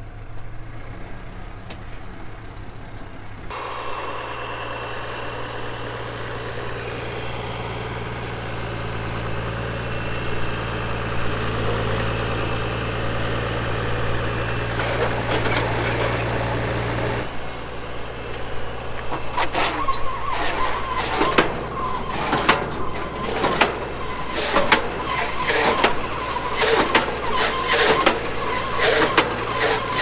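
Tractor engine running steadily, then, from about 17 seconds in, a Tanco Autowrap bale wrapper turning a round bale and wrapping it in plastic film, with a rapid run of clicks and rattles over the engine.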